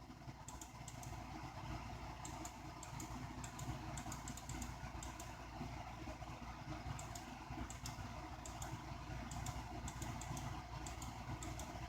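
Faint, irregular clicking of computer controls as the frames of an animation are scrolled through, over a low steady hum.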